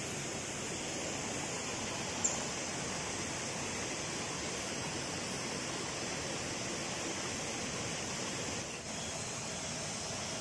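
Stream water running over rocks, a steady rush with a steady high-pitched hiss above it. A short click about two seconds in.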